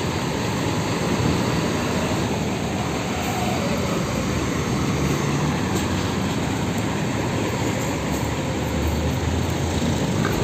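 Mercedes-Benz OF 1626 front-engined bus running steadily as it pulls away and drives past close by.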